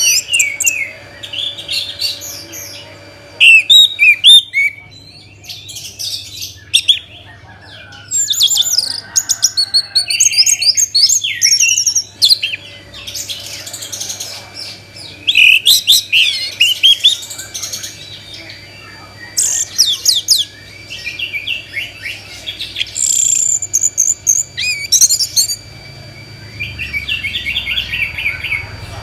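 Orange-headed thrush (anis merah) singing loudly: rapid, varied phrases of chirps, trills and whistles, each a second or two long, broken by short pauses.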